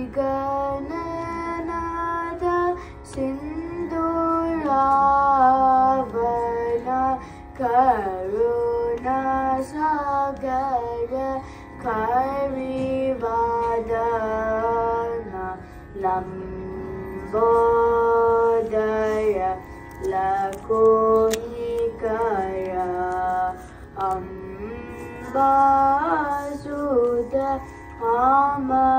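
A child singing a Carnatic vocal piece in phrases with sliding, ornamented notes, over the steady drone of an electronic shruti box.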